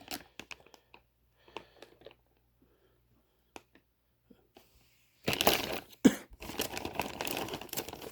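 Plastic packaging handled: a few light clicks and rustles, a quiet stretch, then from about five seconds in a loud run of plastic crinkling and tearing with one sharp click, as wrapped parts are unpacked.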